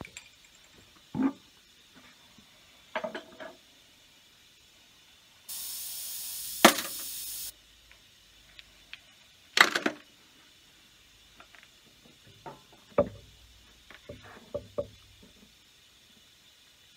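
Scattered knocks and clinks as the lid comes off a vibratory tumbler bowl and steel T-nuts are dropped in, one at a time, among ceramic triangle tumbling media. A steady hiss lasts about two seconds near the middle.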